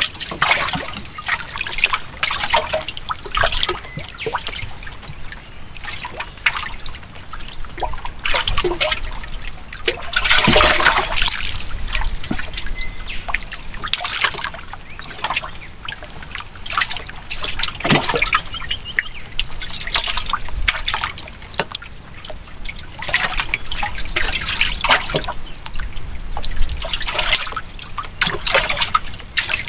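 Water trickling and splashing close by, in irregular small splashes and drips with no steady rhythm.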